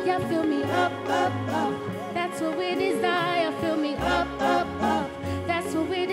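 Live gospel band playing with no words sung: bass notes, drum hits and electric guitar under a melodic line with strong vibrato.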